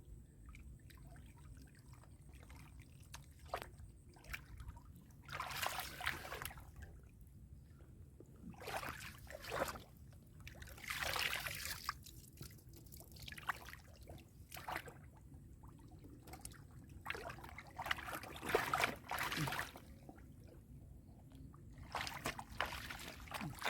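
Shallow muddy water splashing and sloshing in irregular bursts of a second or so, with quieter trickling between them.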